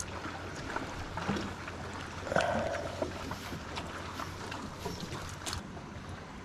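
Quiet sounds aboard a small fishing boat on the water: soft knocks and light clicks over a steady low background, with one brief louder noisy burst about two seconds in.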